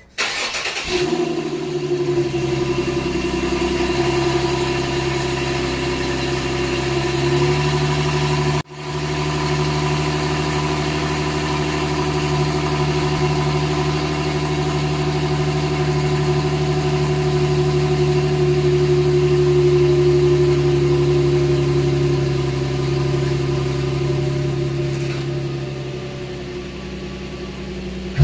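Infiniti G37 sedan's 3.7-litre VQ V6 idling steadily through a catalytic-converter-delete exhaust with test pipes. It breaks off for an instant about a third of the way in, then carries on.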